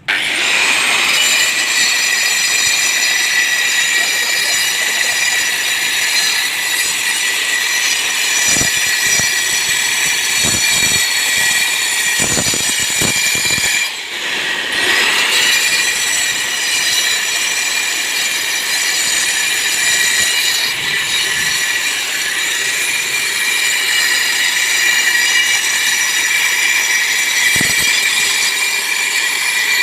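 Angle grinder cutting, a loud, steady, high-pitched whine with a grinding edge. It starts abruptly and dips briefly about halfway through.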